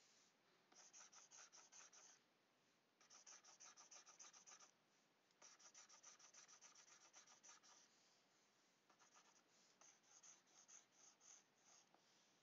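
Faint stylus scratching across a graphics tablet in quick back-and-forth shading strokes, several a second, in four bursts with short pauses between.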